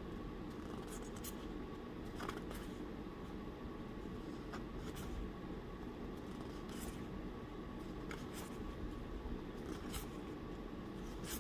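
Tarot cards being handled and flipped through one at a time: faint, irregular soft clicks and slides of card stock, over a low steady room hum.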